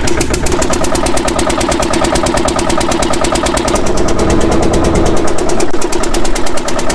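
Engine of a local river ferry boat running steadily with a fast, even chugging beat, loud enough to drown out talk on board.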